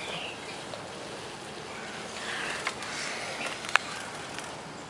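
A few soft, high bird chirps over a steady background hiss, with one sharp click a little before the four-second mark.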